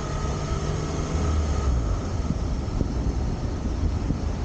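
Steady low rumble of a vehicle on the move, with a faint steady tone over it that fades out about a second and a half in.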